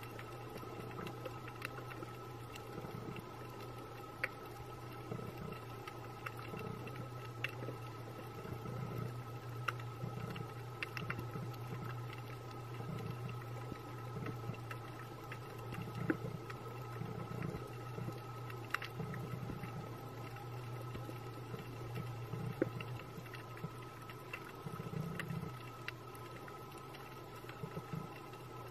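Underwater ambience picked up by a diver's camera: a steady low hum with a few faint, constant whining tones above it, and scattered sharp clicks throughout.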